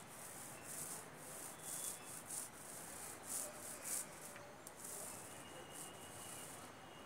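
Paint roller on a long pole being rolled over a wall: a faint, soft rubbing hiss that repeats with each stroke, about every half second.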